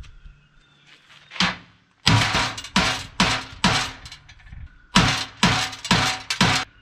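Hammer blows on a bent steel winch mount held under pressure by a hydraulic jack, to straighten it flat. About a dozen sharp metallic strikes come in two runs of two to three a second, with a short pause in the middle.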